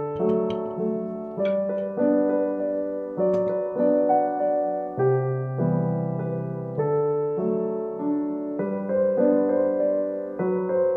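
Background piano music: slow notes and chords, each struck and then fading away.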